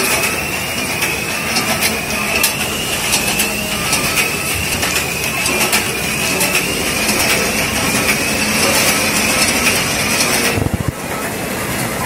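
Ishida 16-head multihead weigher running: a steady mechanical din with rapid clacking of the hopper gates and a faint rising whine that repeats about every second and a half. The whine stops about ten seconds in, where the sound shifts.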